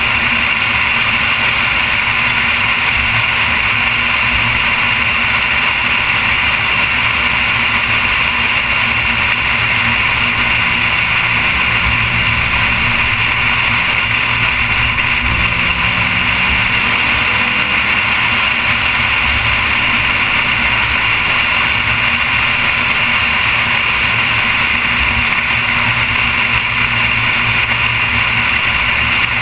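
Noble M400 cruising steadily, heard through a camera mounted on its nose: a constant loud rush of wind and road noise, with the engine faint beneath it.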